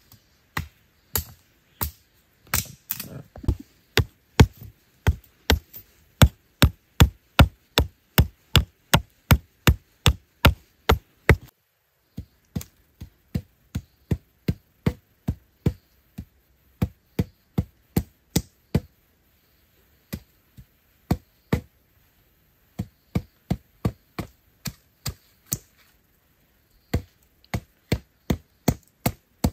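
Repeated sharp chopping strikes on wood or bamboo, a fast even run of about two or three a second. After a break about 12 seconds in, a machete chops and shapes a bamboo stick in slower strokes, about one a second, with short pauses.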